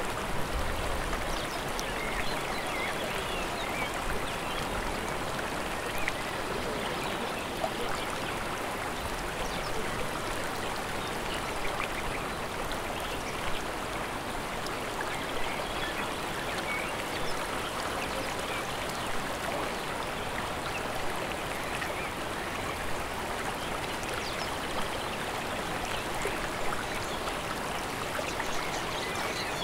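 Steady rush of flowing water, with small splashes standing out now and then.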